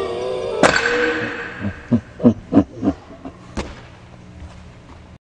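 A person's voice after a fall onto gymnastics mats: a long held cry, then a string of short vocal sounds that each drop in pitch, and a sharp click near the middle.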